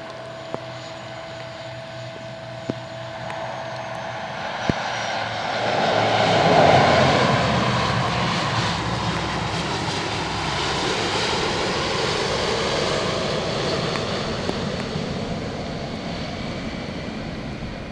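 Airliner's engines passing close: a swell that peaks about six or seven seconds in, with a high whine that falls in pitch, then a steady loud rumble that slowly eases.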